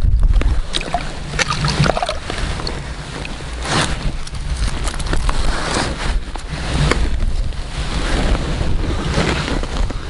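Wind buffeting the microphone, with a rushing rustle and a few sharp clicks from handling close to it.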